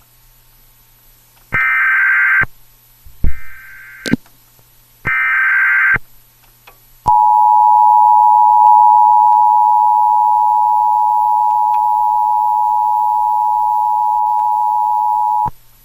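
Emergency Alert System tones: three one-second bursts of SAME digital header data, then, about seven seconds in, the steady two-tone EAS attention signal, held for about eight seconds before it cuts off.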